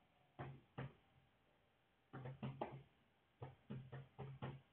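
Faint computer keyboard keystrokes: two single taps, then two quick runs of typing.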